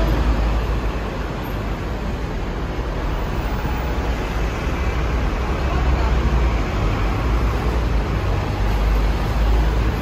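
Steady road traffic noise with a heavy low rumble.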